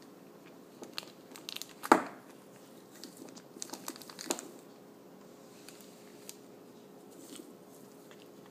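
Plastic wrapper of a Milky Way chocolate bar crinkling and crackling as a cat paws and bites at it, in two bouts of handling with a sharp knock just before two seconds in.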